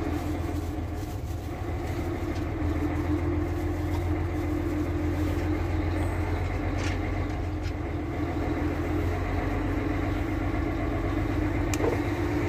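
Semi-truck's engine running steadily with road noise, heard from inside the cab while driving, a low, even drone. Two brief clicks, about seven seconds in and near the end.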